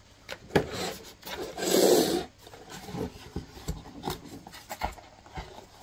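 Small cardboard box being handled and opened: cardboard rubbing and scraping, with one longer, louder scrape about two seconds in and scattered light knocks of the box.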